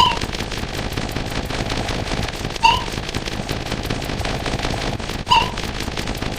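Sound-effect track: a dense, continuous crackle of rapid-fire clicks like machine-gun fire, with a short pitched blip three times, about every two and a half seconds.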